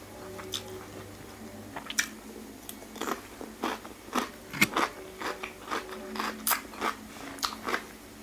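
Close, crisp chewing of dry stir-fried small shrimp, in short crunches about two to three a second that start about two seconds in.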